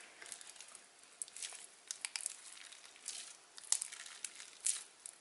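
Hands kneading and pulling stringy, freshly activated glue slime in a plastic bowl: faint, irregular sticky clicks and crackles as it pulls apart.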